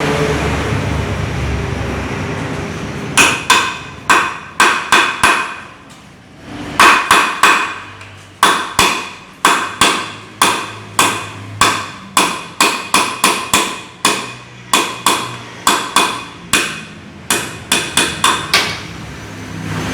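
Hammer striking metal over and over, two to three blows a second in several runs with short pauses, each blow ringing briefly. The blows begin about three seconds in, after a steady noise.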